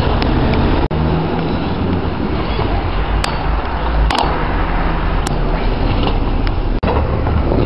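Kick scooter's small wheels rolling over brick paving, a steady rumble, with a few sharp clacks of the scooter hitting the ground during tricks around the middle.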